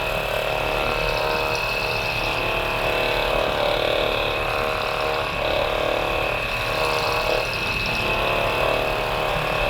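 Hypervolt percussion massage gun running with a steady mechanical buzz, pressed along the peroneal muscles on the outside of the lower leg.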